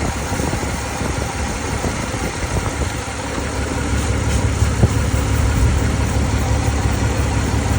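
2003 Chevy Silverado engine idling with a bad misfire, which the owner traces to a spark plug. The low rumble grows a little louder about four seconds in.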